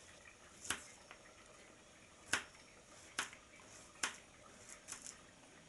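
A small knife slicing garlic cloves on a plastic plate: about seven sharp, unevenly spaced clicks as the blade cuts through and meets the plate, the loudest about two seconds in.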